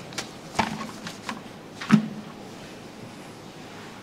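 Papers being handled at a lectern microphone: a few light knocks and paper rustles, the loudest a dull thump about two seconds in, then quiet room tone.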